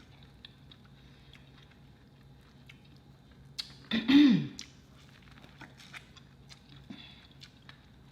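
Close-miked chewing with small wet mouth clicks and smacks, and one loud "mmm" of approval about four seconds in.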